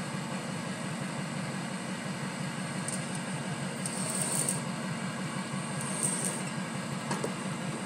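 Small electric trailer winch running steadily as it drags a wooden utility pole along the trailer deck, with a few brief high squeaks about three, four and six seconds in. The winch is undersized and running off a poorly charged battery.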